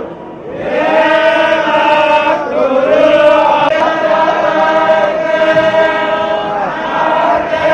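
A group of temple priests chanting in unison into microphones, long held notes with gliding pitch changes. The chant drops briefly for a breath right at the start.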